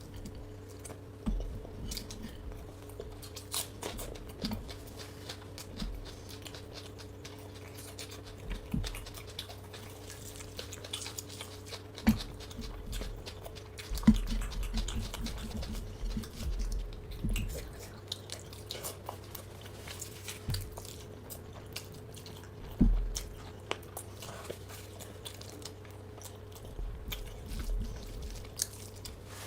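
A person eating close to the microphone: irregular chewing and biting with sharp clicks of the mouth and food, and a few heavier bites, over a steady faint hum.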